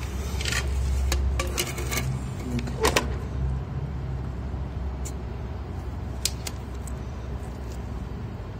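Light metallic clicks and taps as a stainless-steel drain grate and a spirit level are handled and set on it, the sharpest about three seconds in, over a steady low rumble.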